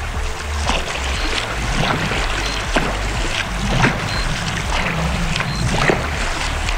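Footsteps splashing and sloshing through shallow flowing water as a person wades across a stream, a step about every two-thirds of a second, over the steady rush of the current.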